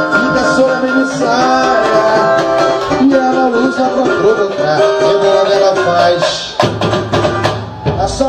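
Samba music: singing over drums and percussion. The sound shifts abruptly about two thirds of the way through and again near the end.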